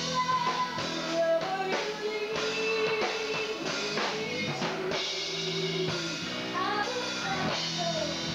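Live rock band playing: a woman singing long held notes into a microphone over a drum kit and electric guitar.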